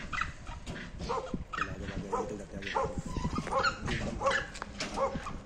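An animal calling over and over in short, arched calls, roughly one every two-thirds of a second.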